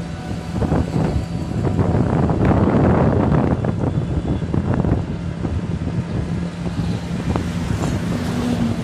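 Open-sided auto-rickshaw's engine running steadily while riding, with wind buffeting the microphone.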